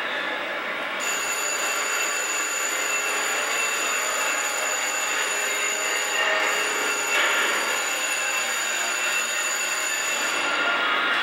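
Steady din of a crowded room. A thin, high-pitched electronic whine of several tones sits over it from about a second in until shortly before the end.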